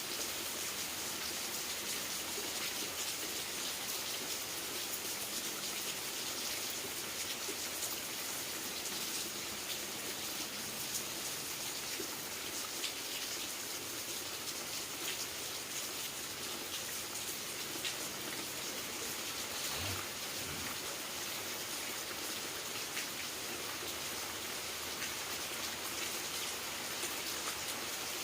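Steady rain falling, a continuous hiss flecked with the ticks of single drops striking a surface. A short low thump comes about two-thirds of the way through.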